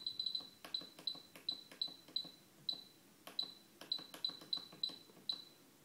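Buttons on an RC transmitter pressed repeatedly, about fifteen times, each press a small click with a short high beep, as the gear-channel endpoint value is stepped down.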